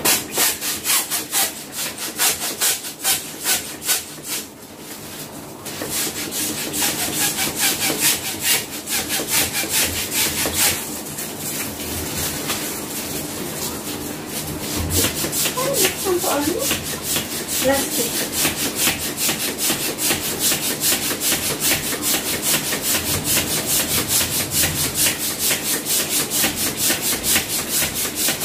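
Hand-held plastic balloon pump worked in quick, regular strokes, about two to three a second, inflating a foil letter balloon. The pumping pauses briefly twice, about five seconds in and again around eleven to fourteen seconds.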